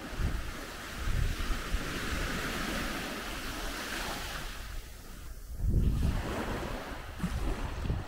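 Small Baltic Sea waves washing up onto a sandy shore, their hiss swelling about a second in and fading around five seconds in. Wind buffets the microphone in gusts, strongest near six seconds.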